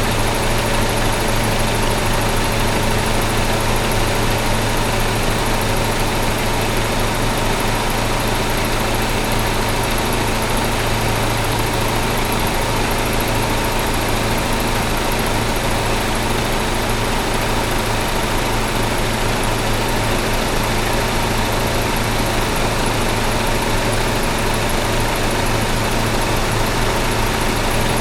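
Car engine idling at a steady pitch, with no revving.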